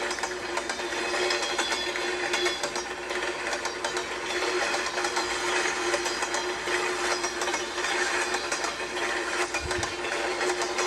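Train clickety-clack sound effect: a fast, even mechanical clatter that runs on without a break, over a steady hum.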